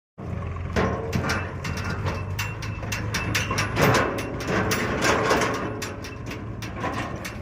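Diesel engine of a JCB 3DX backhoe loader running steadily under load, with frequent sharp metallic clanks and knocks over the engine's low hum.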